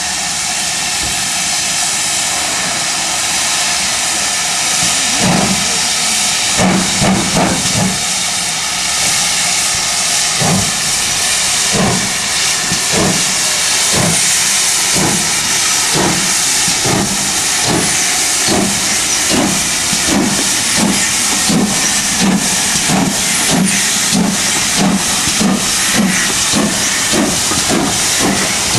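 GWR 'City' class 4-4-0 steam locomotive No. 3440 City of Truro starting a train, with a steady hiss of escaping steam throughout. Its exhaust chuffs begin about five seconds in, slow and spaced at first, then quicken steadily as the engine gets under way.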